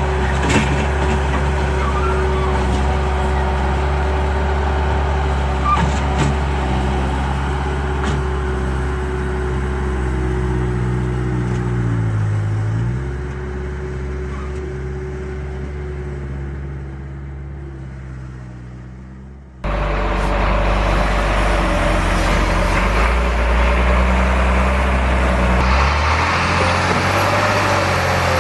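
Scale RC construction machines working: a steady, engine-like truck drone with the whine of small motors, dipping in pitch once. It fades down, then cuts sharply to a louder stretch of the same kind of machine sound about two-thirds of the way through.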